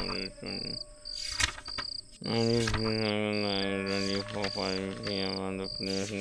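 Crickets chirping in a steady high pulse, about two chirps a second. From about two seconds in, a louder low drawn-out pitched tone sounds over them.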